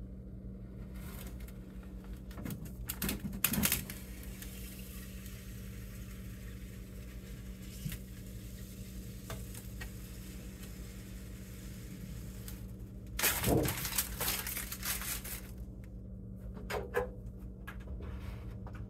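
Blue protective plastic film being peeled off a thin metal sheet: a continuous crackling hiss, with louder crinkling bursts about three and a half seconds in and again around thirteen to fifteen seconds, over a steady low hum.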